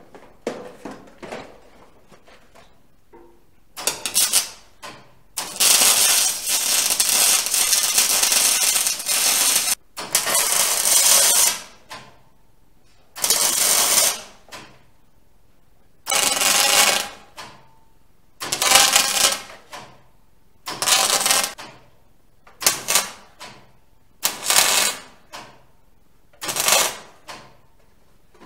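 Electric arc welding: a series of welding runs, each a steady noisy hiss lasting one to four seconds, with pauses between, the longest about four seconds near the start. A few short knocks come in the first few seconds.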